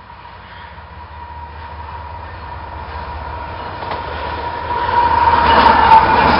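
Union Pacific diesel locomotive leading a freight train, approaching and passing close by: its low engine rumble and the rail noise grow steadily louder, loudest as the locomotive passes about five to six seconds in. A steady high tone runs under it.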